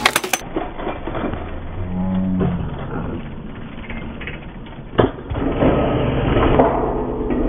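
Outdoor skatepark noise with a short low hum, like a voice, about two seconds in, then a single sharp knock about five seconds in as a BMX rider lands back on the concrete beside his bike.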